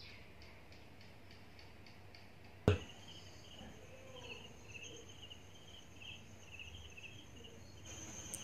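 Faint, high-pitched insect-like chirping in the background, a quick run of short ticks at first and then a pulsing, warbling trill. A single sharp click comes nearly three seconds in.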